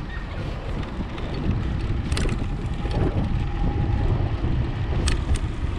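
Wind rumbling over the microphone of a camera on a moving bicycle, with a few sharp clicks about two seconds in and twice near the end.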